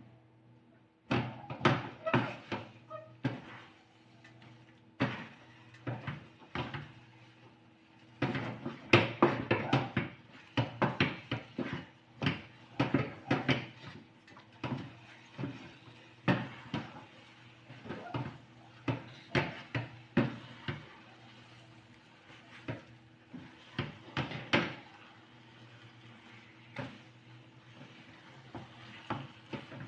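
A cooking utensil scraping and knocking against a pot, in irregular clusters of strokes, while stirring thick, sticky glutinous rice for biko. A faint steady hum runs underneath.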